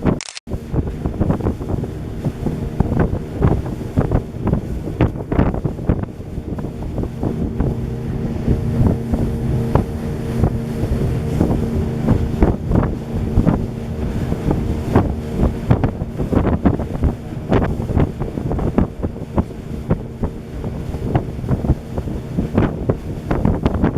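Motorboat under way: its engine drones steadily while wind buffets the microphone in irregular gusts. The sound drops out for a moment just after the start.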